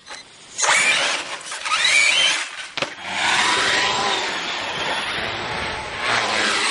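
Traxxas Summit RC monster truck pulling away and driving. Its electric motor whines and rises in pitch about two seconds in. The knobby tyres make a steady rolling noise on the concrete.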